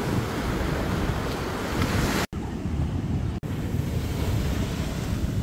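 Ocean surf washing on the beach, with wind rumbling on the phone's microphone. The sound cuts out for an instant twice, a little after two seconds and again about a second later.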